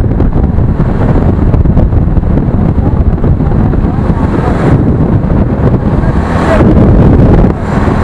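Heavy wind buffeting on the microphone of a motorcycle riding at highway speed, with the bike's engine running underneath. It swells louder for about a second near the end, then eases briefly.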